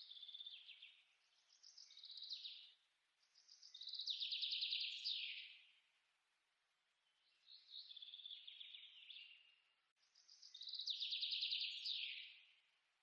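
A songbird singing: phrases of rapid trilled notes, each about one to two seconds long and stepping down in pitch to end in a quick downward sweep, repeated about five times with short pauses between.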